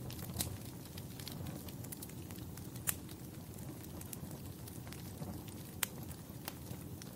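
Fire crackling in a fireplace: a steady low rumble of flames with scattered sharp pops, the loudest about three seconds in.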